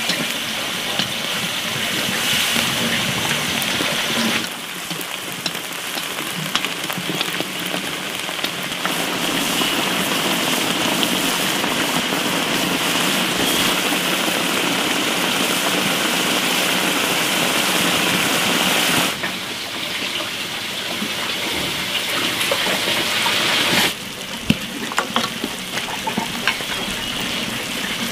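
Meat sizzling and bubbling in a sauce in a wok over a wood fire: a steady frying hiss whose level jumps up or down abruptly a few times. Near the end, sharp clicks of a utensil against the wok.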